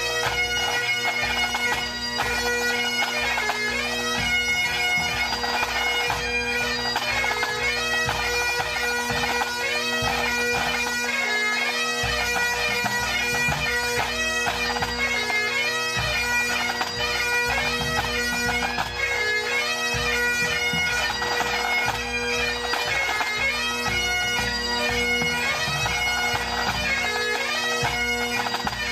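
Pipe band playing: Great Highland bagpipes sounding a tune over their steady drones, with snare, tenor and bass drums beating along.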